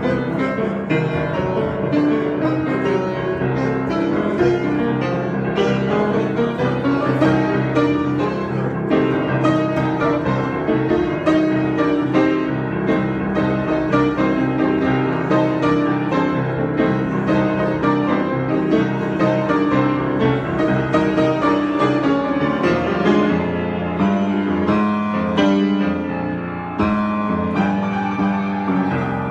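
Solo piano improvisation, played continuously with dense, changing chords and runs, easing briefly before going on near the end.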